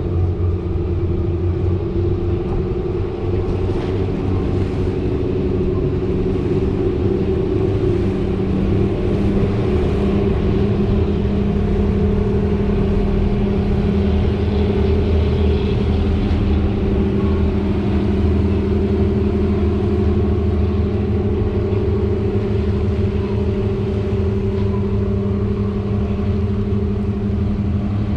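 Small passenger ferry's engine running at a steady, low drone, with the wash of the water under it.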